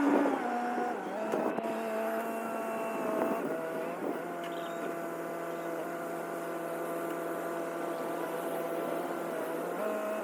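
A vehicle engine running at a steady speed, a constant engine drone.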